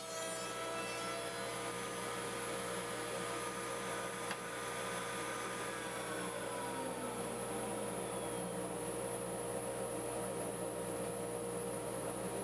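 Steady whir and hum of an electric shop motor running at constant speed. About six seconds in, a few of its tones slide downward while the rest of the whir carries on.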